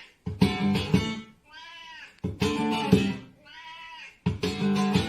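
Music with a plucked, guitar-like part: loud chords alternate about every two seconds with a quieter cry whose pitch rises and falls like a cat's meow.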